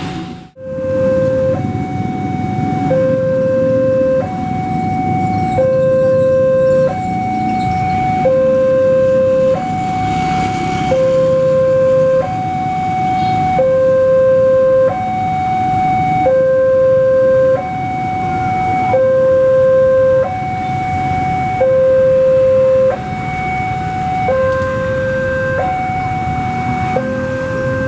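Railway level-crossing warning alarm sounding a steady two-note hi-lo chime, each note held just over a second and the lower note louder, signalling that the crossing is closed for a train. A low rumble of idling motorcycles runs underneath.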